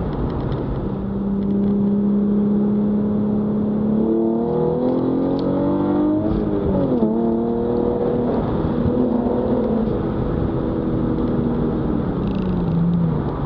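Hyundai Genesis Coupe's 3.8-litre V6, fitted with an R2C intake, heard from inside the cabin while driving. It runs steadily, revs up from about four seconds in, drops sharply in pitch at a gear change midway, cruises again, and falls in pitch near the end as it eases off.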